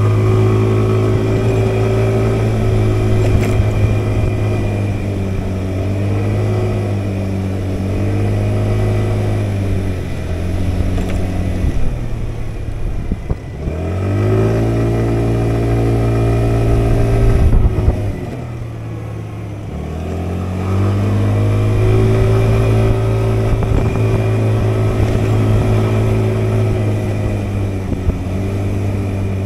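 A motor scooter's engine running at a steady pitch while riding, twice easing off, about 12 and 18 seconds in, as the pitch falls, then picking up again as it accelerates.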